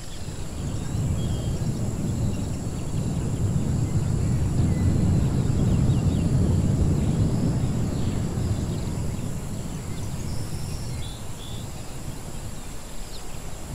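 Edited jungle-ruins ambience: a deep rumble swells to a peak about halfway through and then eases off. Faint, scattered bird chirps sound above it.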